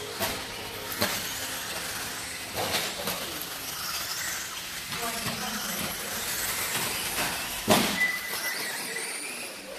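Radio-controlled off-road buggies running on a dirt track: a steady high motor and tyre noise, broken by a few sharp knocks, the loudest about three-quarters of the way through.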